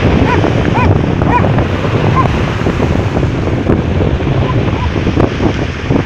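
Sea surf breaking and washing up a pebble beach, with wind buffeting the microphone. About six short, high, rising-and-falling calls sound in the first two seconds.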